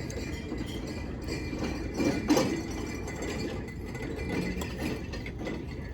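Clinks and taps of dishes and cutlery over a steady restaurant background, with a louder clatter about two seconds in.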